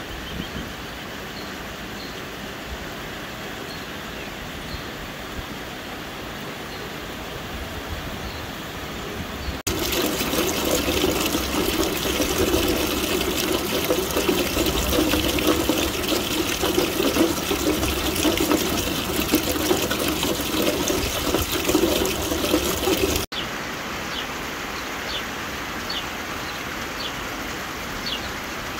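Steady rain falling. About ten seconds in it gives way to a louder, splashing gush of rainwater pouring from a downspout onto a concrete step, which stops abruptly about fourteen seconds later, leaving steady rain again.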